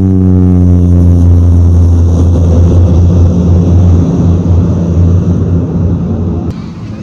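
Cessna Grand Caravan's Pratt & Whitney PT6A turboprop engine and propeller running loud, a low drone whose tone glides steadily down in pitch over the first few seconds, then turns into a rougher rumble. The level drops suddenly near the end.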